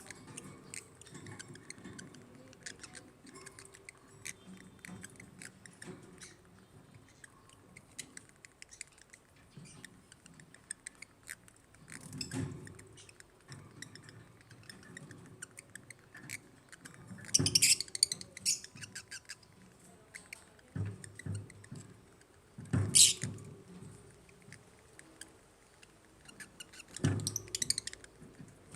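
African lovebirds chirping: a steady run of rapid, short chirps and clicks, with louder shrill bursts of calls breaking out three times in the second half.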